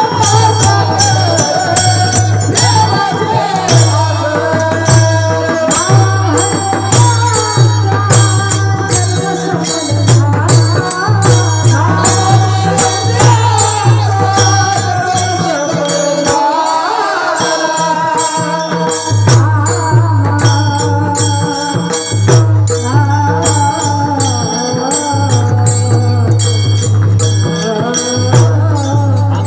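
Devotional singing accompanied by mridang (pakhawaj) drumming and a steady, quick beat of small hand cymbals, over a sustained low drone that drops out briefly about two-thirds of the way through.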